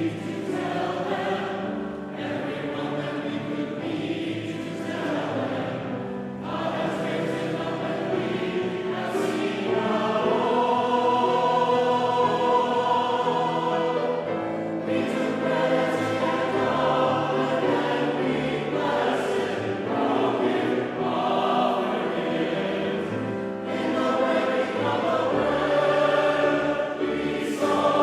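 Choir singing a hymn, with long sustained notes over a steady low bass line.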